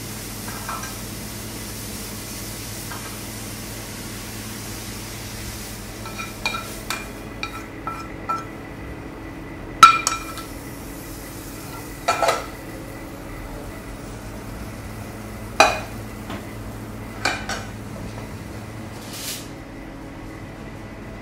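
A metal spoon scraping, tapping and clinking against frying pans while leek is transferred and stirred into a pan of chicken and tomato. A faint sizzle comes first, then a series of sharp metallic clinks and knocks, with the loudest near the middle, over a steady low hum.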